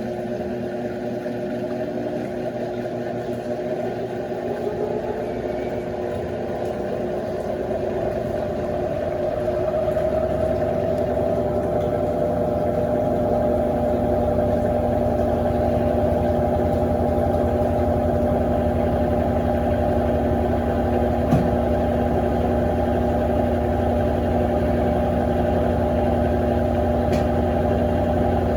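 Electrolux LF90 top-loading washing machine running its towel pre-wash: a steady motor hum that rises in pitch and gets louder over the first ten seconds or so, then holds steady. A single sharp click about twenty-one seconds in.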